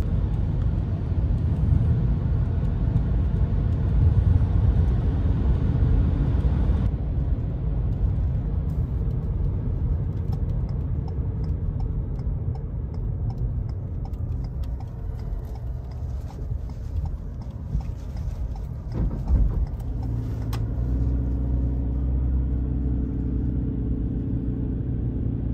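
Road and tyre noise heard inside the cab of a 2022 Ford Maverick Hybrid pickup while driving, a steady low rumble. About twenty seconds in, a steady low hum joins it.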